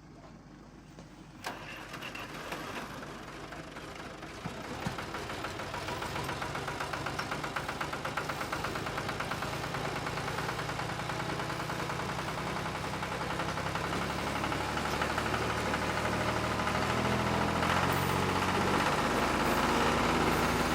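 An engine starts about one and a half seconds in and keeps running with a rapid, even firing rhythm, growing steadily louder.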